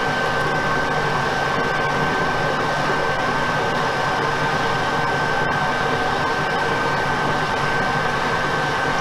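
Metal lathe running with a carbide-tipped boring bar cutting the center bore of an alloy wheel: a steady mechanical whirr with a steady high-pitched whine in it.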